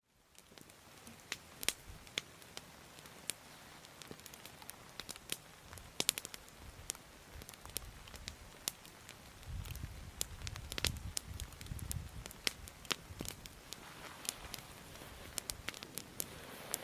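Small wood campfire crackling, with irregular sharp pops and snaps. A low rumble comes in for a couple of seconds about ten seconds in, and footsteps rustle through brush near the end.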